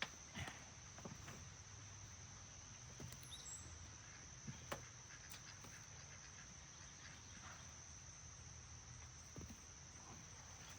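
Near silence outdoors: a faint, steady high-pitched trill of crickets, broken by a few faint knocks.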